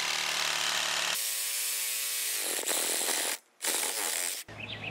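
Cordless reciprocating saw with a metal-cutting blade running as it cuts through copper water pipe. Its sound shifts about a second in. It stops for a moment about three and a half seconds in, runs again, and stops near the end.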